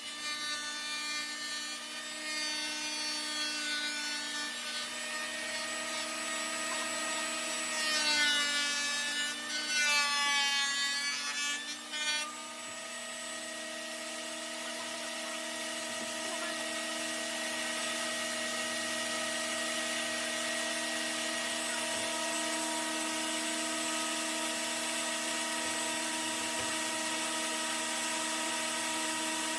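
Ridgid 13-inch thickness planer running with a steady high whine. About a third of the way in, its pitch sags and recovers twice as the cutter head takes load from a plank, then it runs steady again.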